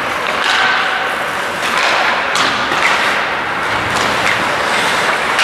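Ice hockey being played: skating on the ice and several sharp knocks of sticks and puck, over the steady noise of the rink.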